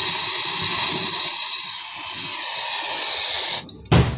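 Brazing torch flame hissing steadily while it seals the pinched-off copper charging tube of a refrigerator after its gas charge. The hiss cuts off suddenly about three and a half seconds in, followed by a sharp clack near the end.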